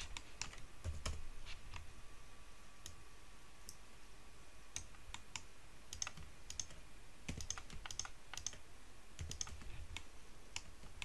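Faint, scattered clicks of a computer mouse and keyboard: button presses, scroll-wheel turns and keystrokes, coming irregularly a few at a time.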